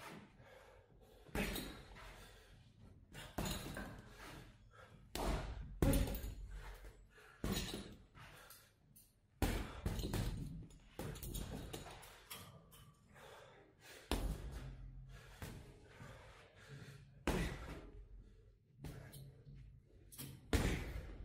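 Boxing gloves punching a Fairtex heavy bag: sharp thuds, single or in quick pairs, at irregular intervals with pauses of a second or more between combinations.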